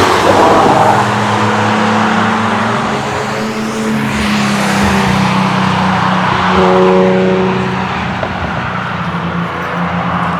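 Cars driving past on a race circuit, their engines running hard under load, with the pitch sweeping as each car goes by; one passes about four seconds in and another engine note comes through around seven seconds in.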